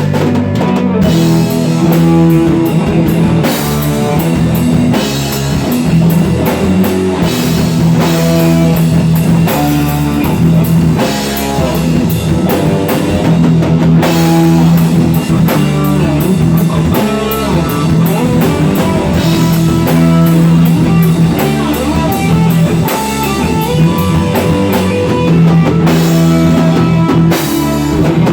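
Rock music played live by a band: guitar over a drum kit keeping a steady beat.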